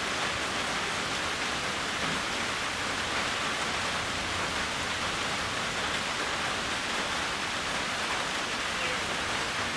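Steady rain falling, a constant even hiss that does not change.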